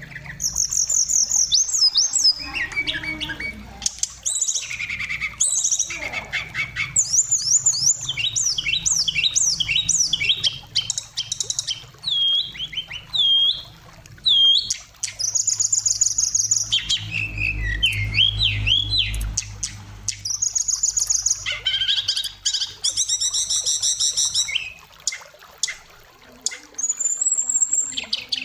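Oriental magpie-robin (kacer) singing a long, varied song of clear whistles, quick runs of repeated falling notes and rapid trills, broken by short pauses between phrases.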